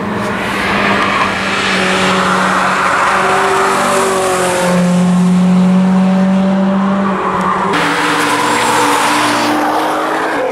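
A car's engine pulling at a fairly steady note as it takes a curve and passes. About three-quarters through, the sound changes abruptly to another car's engine with loud tyre noise from a skid, tyres smoking.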